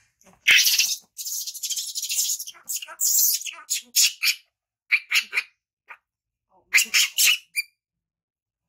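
Baby macaque screeching: shrill, noisy squeals, one long run of about a second and a half early on, then several shorter squeals spaced about a second apart.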